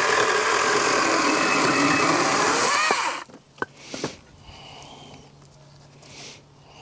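Battery-powered Wild Badger 16-inch chainsaw running under load, its electric motor whine and chain cutting through a wood round, stopping suddenly about three seconds in. A couple of light knocks follow.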